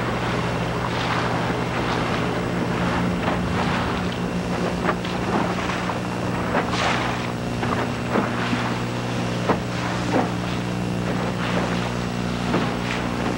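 A motorboat engine running steadily at cruising speed, its even low hum under a continuous rush of wind and water, with irregular short louder swishes.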